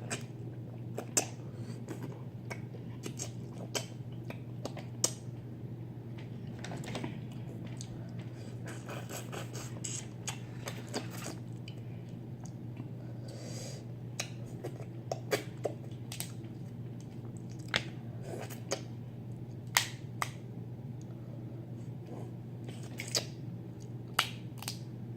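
Close-up eating sounds from a seafood boil: scattered wet mouth smacks and sharp clicks of chewing, a few at a time with pauses between, over a steady low hum.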